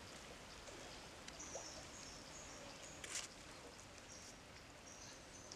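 Faint outdoor ambience: the steady hiss of a stream with a few high, thin bird calls, and one sharp click about three seconds in.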